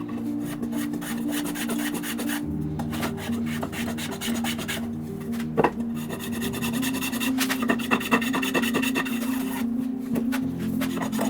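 Block plane shaving chamfers along white oak edges: repeated short scraping strokes of the blade on the wood, over background music with low held notes.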